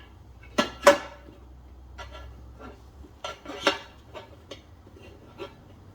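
Metal tire-changing tools clanking and scraping against a motorcycle wheel rim and a Rabaconda manual tire changer as a tire is levered on. There are about seven sharp metallic knocks with a brief ring, the two loudest close together about a second in.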